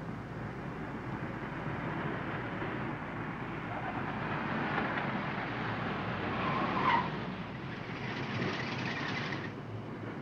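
A car drives up and pulls to a stop, its engine and tyres running steadily. A short tyre squeal comes about seven seconds in, and a hiss cuts off sharply as the car halts.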